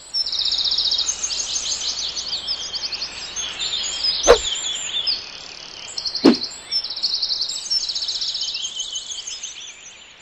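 Several songbirds chirping and singing in fast trills. Two sharp thumps, about two seconds apart, stand out as the loudest sounds, and the birdsong fades near the end.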